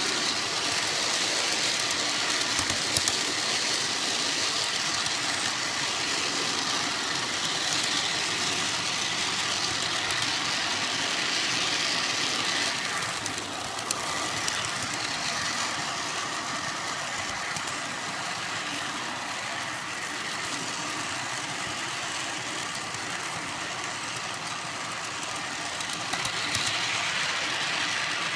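Steady rolling noise of a G-scale model train's caboose wheels running along the rails, heard from on board, with a few light clicks and a brief change in the noise as it crosses a track switch about halfway through.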